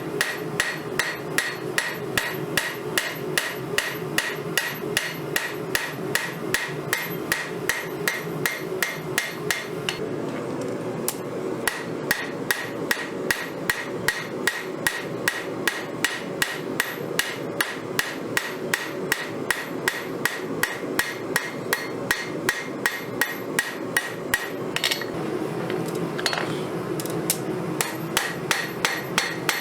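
Hand hammer striking steel on an anvil in a steady rhythm of about two to three blows a second, each blow with a ringing anvil tone: a file being forged into a knife blade. The ring fades for a couple of seconds about ten seconds in while the blows go on.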